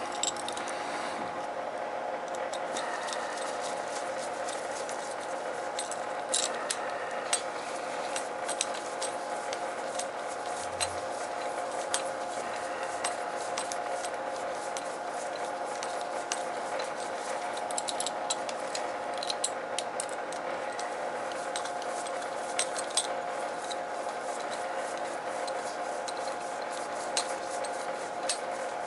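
Light, scattered clicks and taps of small metal parts and tools being handled while a wire connector is fitted, over a steady hum.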